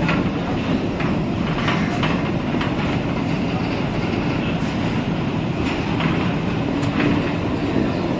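Rail crane rolling along the track: a steady rumble of wheels on rail, with a few sharp clacks as the wheels cross rail joints.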